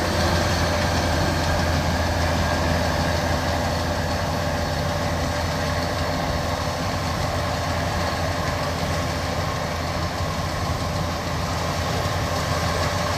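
Kubota DC-93 combine harvester running steadily, its diesel engine and machinery giving a constant drone with a strong low hum.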